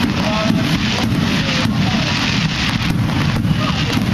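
Wind buffeting the microphone: a steady low rumble with a rough hiss over it.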